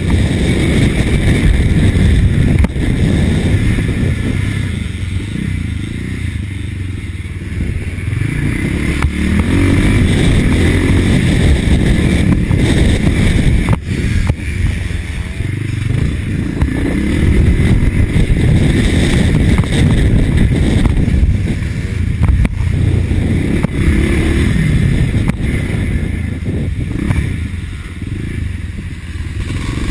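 1983 Husqvarna TC 500 motocross motorcycle engine running hard under throttle, its revs rising and falling every few seconds as it is ridden.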